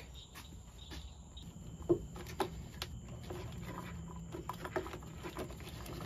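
Faint handling noises of small wires and crimp connectors being pushed onto the terminals on the back of a hazard light switch: light rustling with scattered small clicks, one a little sharper about two seconds in.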